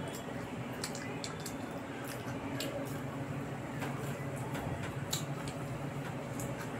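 Wet chewing and squishing sounds of a person eating a fried pakoda by hand, with scattered short clicks, as fingers then mix rice on a plate.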